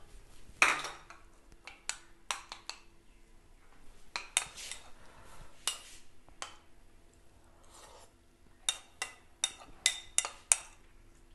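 Kitchen utensil clatter: a spatula knocking in an aluminium cooking pot, then a metal spoon clinking against a small ceramic bowl. A quick run of about six sharp clinks comes near the end.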